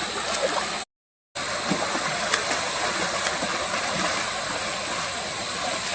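Steady rushing and splashing of water, with a few faint small clicks. The sound cuts out completely for about half a second about a second in.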